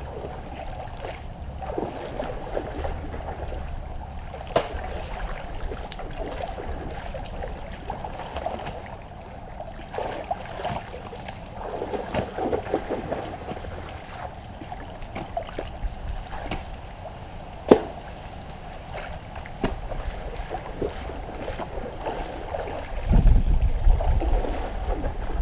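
Muddy water splashing and sloshing as people wade and work in a shallow fishpond, with scattered irregular knocks. Wind gusts rumble on the microphone near the end.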